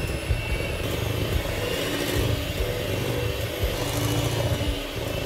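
Electric hand mixer running steadily, its beaters churning eggs into creamed butter and sugar in a glass bowl.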